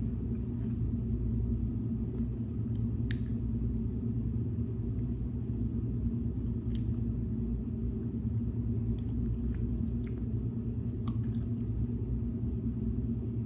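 Steady low rumble, like a car's idling engine heard inside the cabin, with scattered faint clicks over it.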